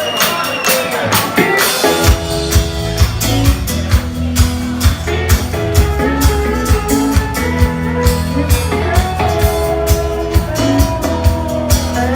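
Live rock band playing the instrumental intro of a song: after a looser opening, drums, bass and guitars kick in together about two seconds in and settle into a steady beat with held guitar chords.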